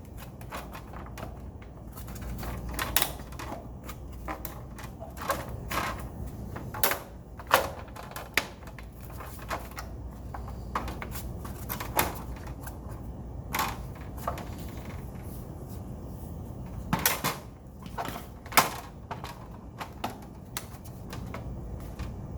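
Irregular clicks and knocks of plastic and metal parts on a Schwinn AC Performance Plus indoor cycle as a part is turned and worked loose by hand around the angled pedal, over a low steady hum.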